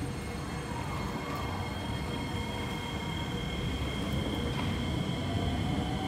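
Kawasaki C151A electric multiple unit pulling away from the platform: a low rumble with steady high whines, and from about four and a half seconds in a whine that rises in pitch as the train gathers speed.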